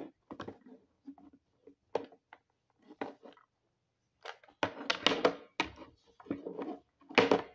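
Plastic dolls and a small plastic toy suitcase knocking and tapping on a tabletop as they are handled. A string of short thunks and clicks, sparse at first and busier in the second half.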